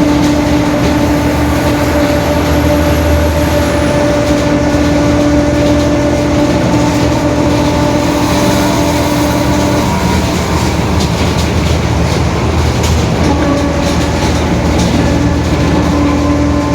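Mercedes-Benz OF-1721 BlueTec 5 city bus under way, its four-cylinder diesel and the road making a steady low rumble. Over it runs a steady whine from the droning rear differential, which drops out about ten seconds in and returns about three seconds later.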